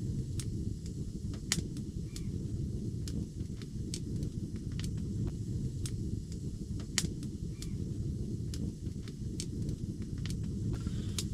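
Wood fire burning in a hot-tent stove, crackling with irregular sharp pops, about one or two a second, over a steady low rumble.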